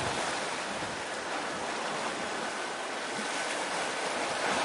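Steady rushing noise of wind and sea waves at the shore, even and unbroken.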